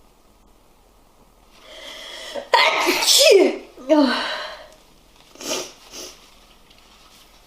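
A person sneezing with a head cold: a drawn-out gasping build-up, then a loud explosive sneeze about two and a half seconds in and a second burst right after. Two short, quieter sounds follow near the end.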